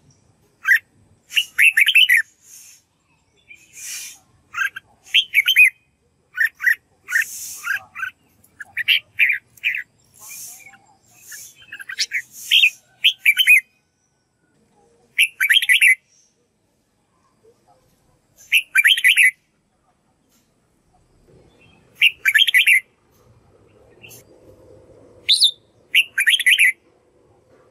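Red-whiskered bulbul singing short, quick warbled phrases, one every second or two, with a few longer pauses in the second half.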